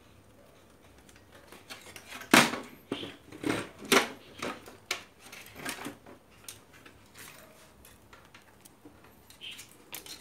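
Clattering knocks as a CRT TV's circuit board and plastic chassis are handled and turned over: a run of sharp knocks about two to six seconds in, the loudest two near two and a half and four seconds, then a few light ticks.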